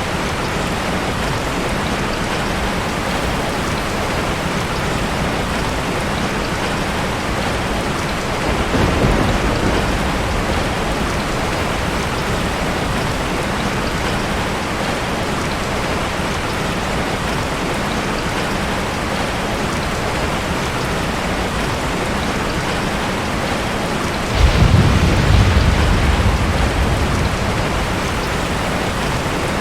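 Steady heavy rain with two rolls of thunder. A short, softer rumble comes about nine seconds in, and a louder one breaks in suddenly about twenty-four seconds in and rolls on for a few seconds.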